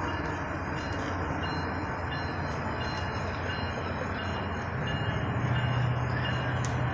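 Distant CSX diesel freight locomotives running with a steady low hum. About five seconds in, a second, slightly higher engine tone comes in louder.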